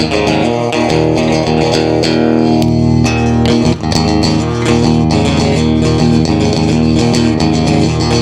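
Electric guitar, a Les Paul-style copy with its stock pickups, played through a Line 6 POD GX running POD Farm amp and effects modelling. Notes ring on continuously, with a brief dip in loudness near the middle.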